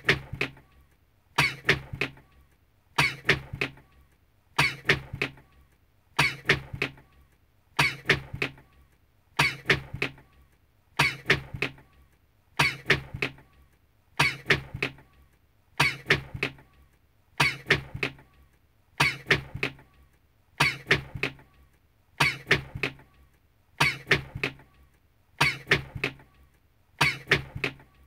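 One person's recorded sneeze repeated in an endless loop, each sneeze a short cluster of sharp sounds, coming about every one and a half seconds.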